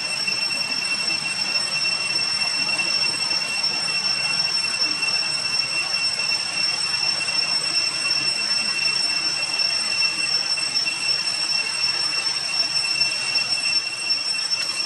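Steady high-pitched insect drone, a constant tone with a higher overtone, over an even hiss.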